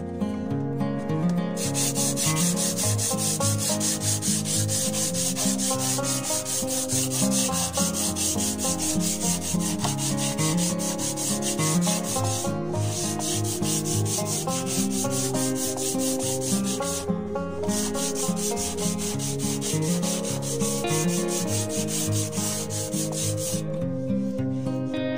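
Hand sanding bare particle board with abrasive paper on a sanding block: quick back-and-forth rasping strokes. It starts about a second and a half in, breaks briefly twice, and stops shortly before the end.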